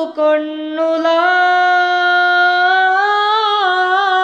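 A young man's voice singing a Maldivian madhaha solo and unaccompanied. After a brief break just after the start, he holds one long note, then works ornamented turns in pitch into it from about three seconds in.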